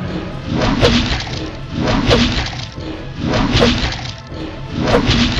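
Background music with four dubbed-in fight hit sound effects, about a second and a half apart.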